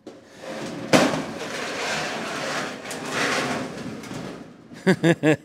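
Hand tools clacking and scraping against a galvanized sheet-metal duct box: a sharp clack about a second in, then a few seconds of uneven metal-on-metal scraping and rubbing.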